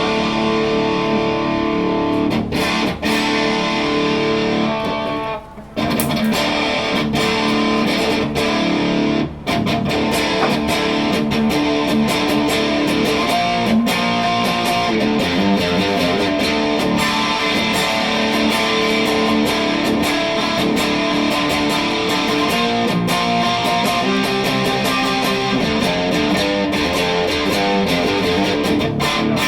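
PRS 408 electric guitar being played through an amp: chords ring out at first, then busier picked lines follow, with two short breaks about five and nine seconds in.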